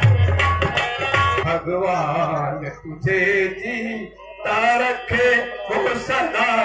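Live tabla drumming with music, with deep bass drum strokes near the start and a voice singing over the accompaniment in the middle.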